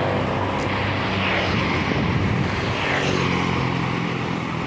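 A large tour bus's diesel engine drones steadily as it passes close by, with heavy road noise underneath.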